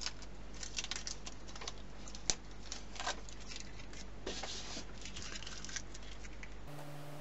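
Paper lettering template being peeled and rubbed off a freshly carved wooden board: a run of short, dry crackles and scratches, with one sharp click a little over two seconds in.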